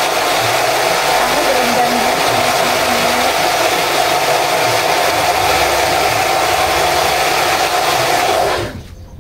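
Electric blender running steadily as it blends tomatoes and chillies with water, then switched off abruptly near the end.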